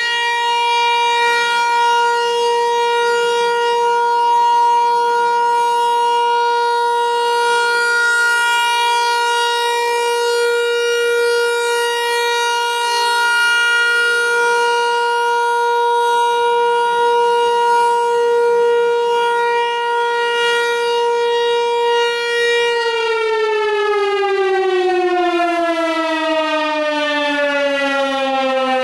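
Federal Signal 508-128 dual-tone outdoor warning siren sounding at full speed in a steady tone, then winding down near the end, its pitch falling smoothly as the rotor slows after shutoff.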